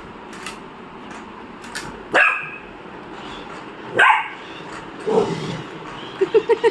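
Dog barking: two sharp, loud barks about two and four seconds in, then a quicker run of short, lower barks near the end, over a steady background whir.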